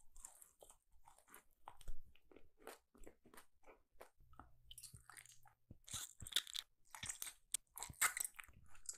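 Biting and chewing sugar-coated sour candy up close: an irregular run of crisp crunches and wet mouth clicks, getting busier and louder in the second half.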